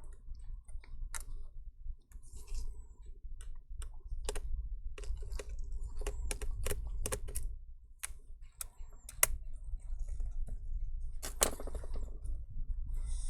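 Irregular small clicks and taps of hands and tools handling the plastic parts and power-button board inside an opened Dell laptop, some in quick runs, one bunch about eleven seconds in.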